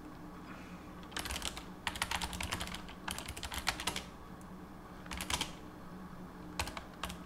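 Computer keyboard typing in several short bursts of rapid keystrokes, with pauses between them.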